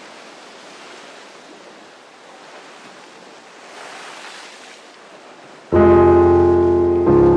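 River water rushing over stones, a steady rush. Near the end, music with sustained keyboard chords comes in suddenly and much louder, with a fresh chord about a second and a half later.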